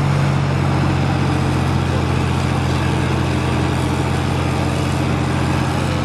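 Heavy vehicle engine running steadily at a constant speed, a low, even drone that begins abruptly.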